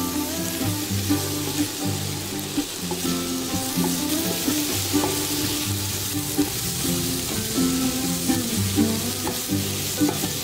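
Onion and bell pepper sizzling as they are stir-fried in a stainless steel pan, with a steady hiss and occasional clicks of the spatula against the pan. Soft background music with held notes plays underneath.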